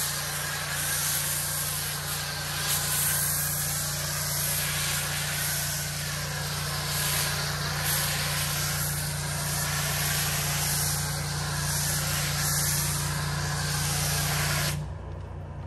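Foam cannon on a pressure washer spraying foam: a steady hiss of spray over the steady hum of the pressure washer, both cutting off suddenly near the end as the trigger is released.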